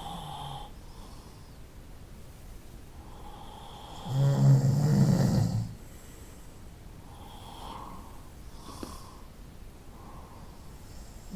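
Someone asleep, snoring slowly. One loud snore comes about four seconds in and lasts under two seconds, softer breaths follow between snores, and the next snore is just starting at the end.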